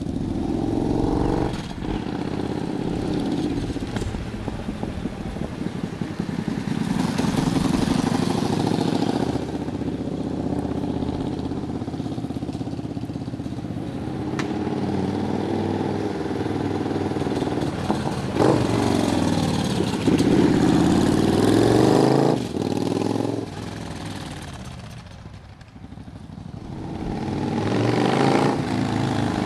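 Cruiser motorcycle engine running as it rides past at low speed, its pitch rising and falling as it comes and goes. It fades briefly about three quarters of the way through, then builds again as the bike approaches.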